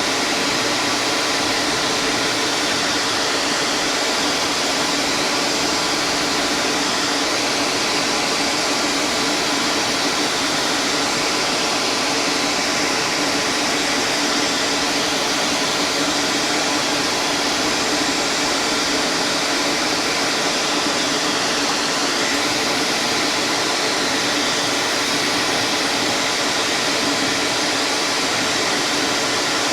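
A woodshop power tool's electric motor running steadily with a rush of air, holding an even pitch and level throughout.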